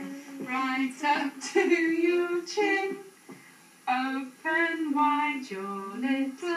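A woman singing a children's fingerplay song, with a toddler's voice joining in. The singing breaks off for about a second midway.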